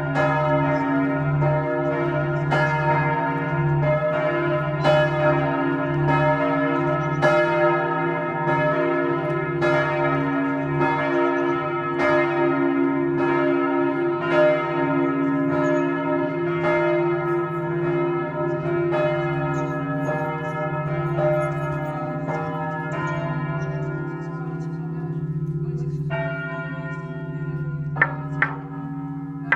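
Monastery church bells ringing, a stroke about every second over a steady hum, thinning out after about twenty seconds. Near the end, sharp wooden knocks start as a toaca, the long wooden semantron plank of an Orthodox monastery, is beaten.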